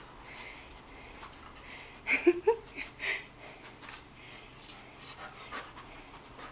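A dog sniffing and panting as it noses along a desk searching for hidden food treats, with a few short, louder snuffling sounds about two and three seconds in.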